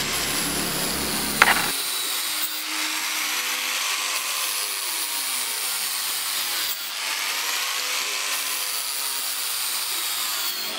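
A tool scraping steadily across a metal sheet as it is scratched, with brief breaks about two and a half and seven seconds in. There is a sharp click about a second and a half in, and faint music underneath.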